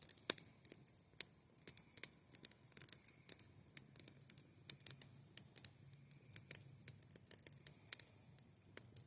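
Campfire crackling: wood popping in sharp, irregular clicks, several a second, with a faint steady high-pitched tone behind.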